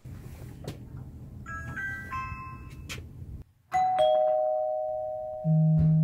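A Ring Video Doorbell Pro's button is pressed, and its speaker plays a short chime of several quick notes. Then a door chime rings a two-note ding-dong, the lower note fading slowly. Near the end a phone lying on a table starts buzzing on vibrate as the Ring alert comes in.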